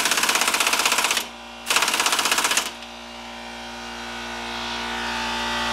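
Pneumatic impact wrench hammering in two bursts, about a second each, as the motor mount bolts are run down and tightened; after that a steady humming tone slowly grows louder.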